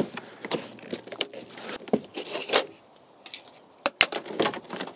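Plastic trim clips popping out and the door card of a Land Rover Freelander rustling and knocking as it is levered off the door with a screwdriver. There are scattered clicks throughout, with two sharp clicks close together about four seconds in.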